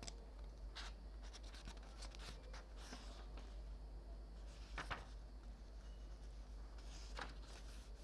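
Paper pages of a softcover photobook being turned and smoothed by hand: a series of short, soft paper rustles and swishes, the loudest about five seconds in and another near the end.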